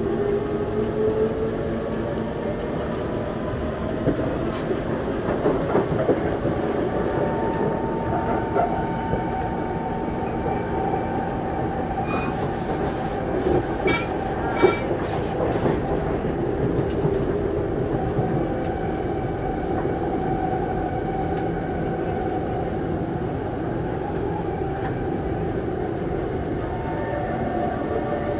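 Singapore MRT train running, heard from inside the car: a steady rumble of wheels on track under a constant motor hum, with a brief cluster of clacks and rattles about halfway through.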